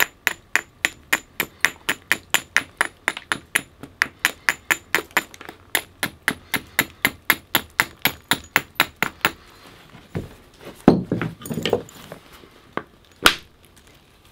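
Flint being knapped with an antler hammer to flatten the underside of an adze blank: a quick, even run of light, ringing taps, about four a second, for roughly nine seconds. Then a clattering burst of handling and falling flakes, and two single sharper strikes near the end.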